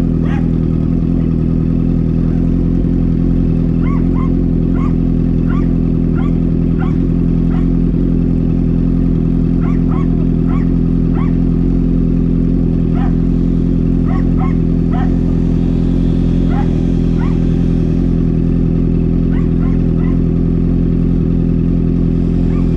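Honda CB650F's inline-four engine idling steadily through a Mivv MK3 full exhaust with no catalytic converter.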